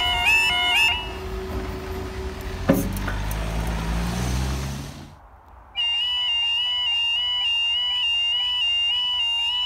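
Level-crossing yodel alarm, a stepped warbling two-tone, stops about a second in. A sharp knock follows, then a low hum that fades out. After a short pause the yodel alarm starts up again with a new, higher stepping pattern as the crossing's amber lights come on for another closure.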